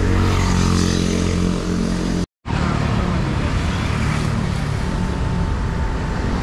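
Street traffic with a motor vehicle's engine running close by over steady road noise; the sound drops out completely for a moment about two seconds in.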